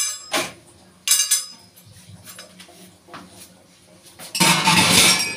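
Metal pan supports of a gas stove being lifted off and set down, clanking with a short metallic ring: a couple of clanks at the start and about a second in, then a longer, louder metal clatter near the end.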